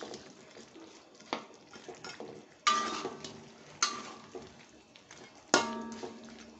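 Metal spatula stirring fish in thick chili sambal in a large aluminium wok, knocking against the pan with four ringing clinks spaced a second or so apart.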